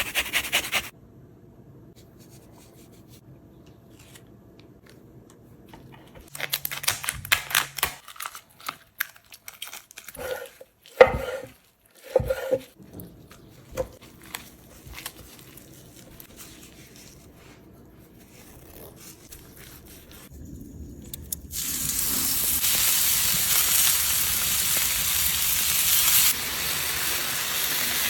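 Scattered clicks, taps and rustles of food being handled and prepared, then, about three-quarters of the way through, loud steady sizzling as meat starts searing on a hot cooking surface.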